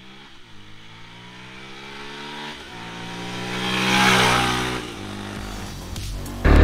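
Yamaha FZ-S V4's single-cylinder engine accelerating. Its pitch climbs, drops at an upshift about two and a half seconds in, then climbs again to its loudest near four seconds before falling away. A loud, sudden sound cuts in at the very end.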